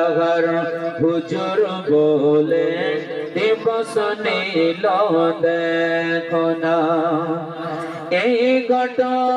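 A man singing a Bengali gojol (Islamic devotional song) into a microphone, with long notes that bend and glide in pitch.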